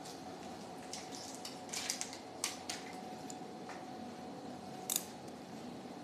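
Steel surgical instruments being handled, giving scattered sharp metallic clicks and clinks, the loudest near the end, over a faint steady tone.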